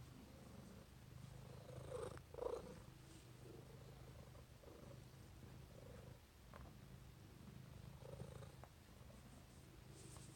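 Domestic tabby cat purring quietly and steadily while being stroked, with a couple of brief rustling noises about two seconds in.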